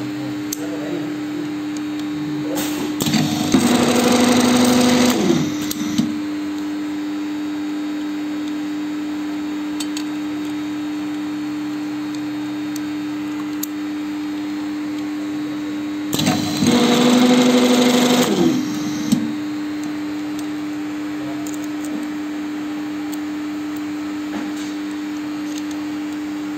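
Spin riveting machine: its motor hums steadily, and twice, about three seconds in and again about sixteen seconds in, the spinning riveting head forms a rivet, a louder machine sound lasting two to three seconds each time.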